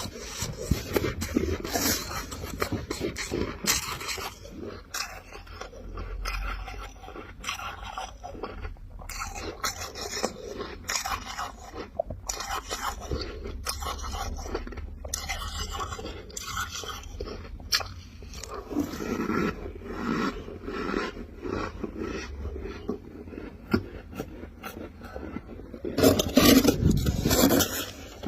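A spoon scraping and scooping squeaky refrozen freezer frost in a box, with crunching as the frost is bitten and chewed; an uneven run of short crackly scrapes, louder near the end.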